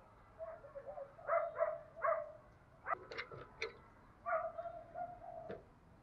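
Spotted dove cooing: a few short low coos in the first two seconds, then a longer coo held for about a second, four to five seconds in. A few sharp clicks come between them, about three seconds in.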